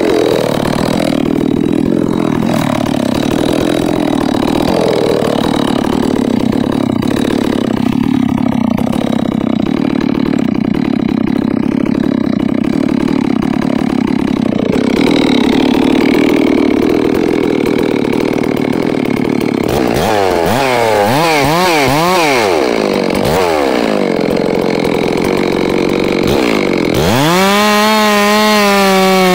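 Ported G660 chainsaw idling, then revved in a series of quick throttle blips from about two-thirds through. Near the end it is opened up to a high, steady full throttle as it goes into the stump.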